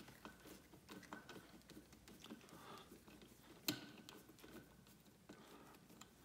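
Faint small clicks and ticks of a screwdriver with a T20 Torx security bit backing out a throttle position sensor mounting screw, with one sharper click a little past halfway.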